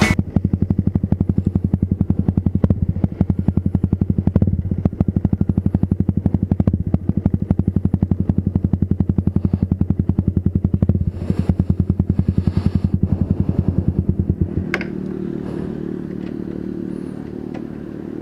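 Motorcycle engine running while riding, with a fast, even pulsing exhaust beat. About fifteen seconds in the pulsing stops and the engine note drops to a lower, smoother, quieter running sound.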